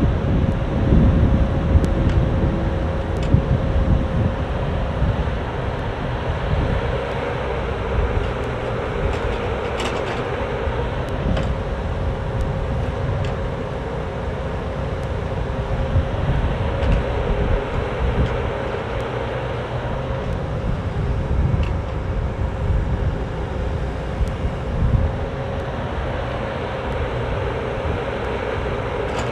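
Cat 304D mini excavator's diesel engine running steadily while the arm and bucket move dirt, a low rumble with a constant whine over it. It is a little louder for the first few seconds.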